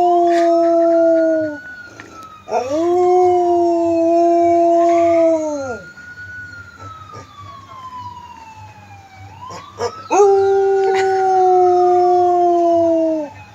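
A mixed-breed dog howling along with a wailing siren: three long, steady howls, each sagging in pitch as it ends, while the siren's tone slowly rises and falls underneath and carries on alone between howls.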